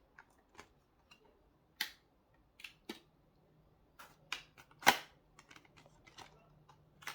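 Irregular sharp clicks and snaps of thin, flimsy plastic as a small Victorinox pocket-knife blade is pushed through it. The two loudest snaps come about 2 and 5 seconds in.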